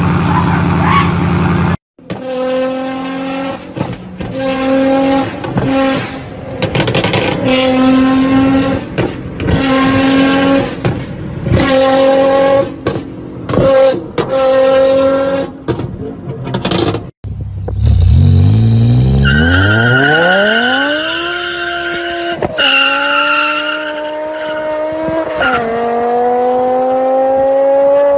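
Loud performance-car exhausts. First comes a brief low rumble, then a run of about eight separate throttle blasts, each held at a steady high pitch with short gaps between. After a cut, an engine winds up steeply from low revs and holds a high wail, dropping in pitch at two gear changes.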